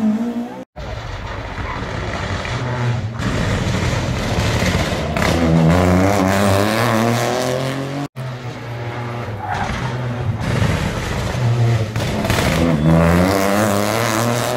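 Rally cars driven hard past the camera one after another, the last a Peugeot 208 rally car. Each engine revs up and down in pitch through the corner, and the sound cuts off abruptly twice between passes.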